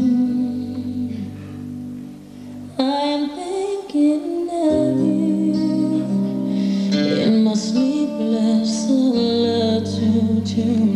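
Music playing for a stage dance. Held tones fade out over the first two seconds, then just before three seconds in a fuller section starts abruptly, with a female voice singing over it.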